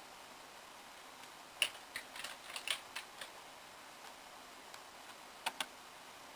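Computer keyboard typing in short, scattered bursts of keystrokes: a flurry of taps between about one and three seconds in, then two quick taps near the end.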